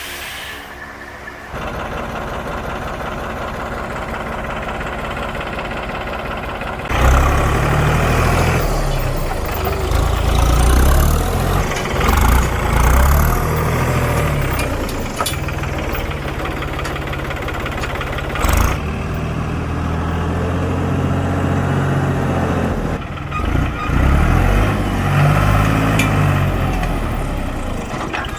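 Engine running steadily, then louder and more uneven from about seven seconds in, as if working under varying load.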